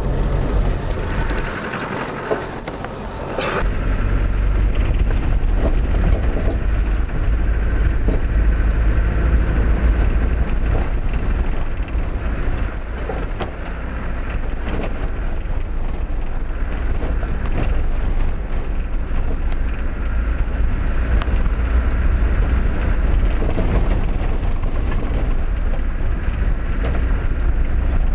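Vehicle driving on a rough dirt track, heard from inside the cabin: a steady low rumble of engine and tyres with scattered knocks and rattles over the bumps. It gets louder about three and a half seconds in.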